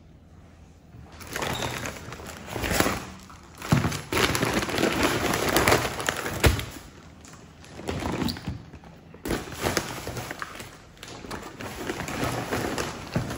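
Groceries being unpacked from a woven plastic reusable shopping bag: the stiff bag crinkles and rustles in irregular spells as hands reach in, with a few thuds as items are set down.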